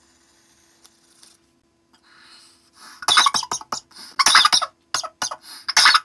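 A person inhaling a cannabis dab through a dab rig, with a faint airy hiss, then a breathy exhale about two seconds in. From about three seconds in she breaks into a fit of harsh, repeated coughing, the throat reacting to the hot dab vapour.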